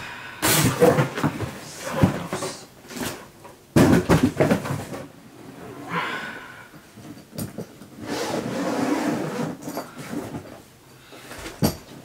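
A studio-light box and its packaging handled and opened by hand: irregular rustling, knocks and clatter, with a sudden loud knock about four seconds in and a longer rustling stretch from about eight to ten seconds.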